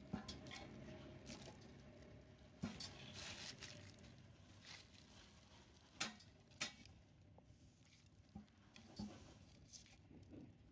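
Faint, scattered light taps and clicks over near silence, with a few sharper ones about two and a half and six seconds in.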